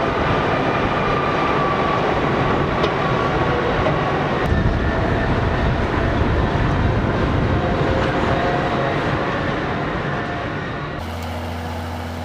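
Cat 657 wheel tractor-scrapers' diesel engines running hard under load, a loud, steady machine noise with faint whining tones. The sound changes abruptly twice, at edits, ending in a steadier low hum.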